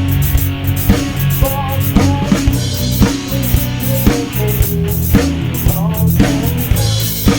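A rock band playing live through an instrumental passage of a song, with no singing. A drum kit keeps a steady beat of kick and snare about twice a second under a bass line and a wavering lead melody.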